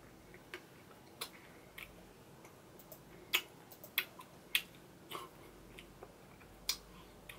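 A metal spoon clicking and scraping in a glass bowl of ice cream: about eight short, sharp clicks, loudest in the middle, with quiet eating sounds.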